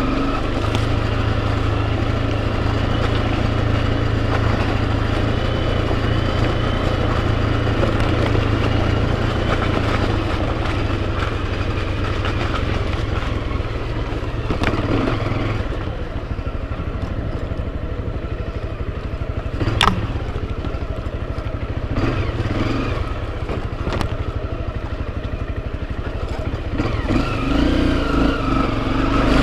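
Enduro motorcycle engine running steadily as the bike rides along, its note dropping about halfway through, with a few sharp knocks and some clatter.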